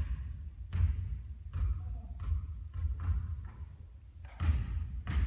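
Basketball bouncing on a hard court floor, a dull thud roughly every three-quarters of a second, with a couple of short high squeaks between the bounces.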